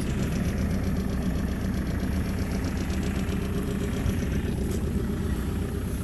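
JCB 526-56 Loadall telehandler's diesel engine idling steadily.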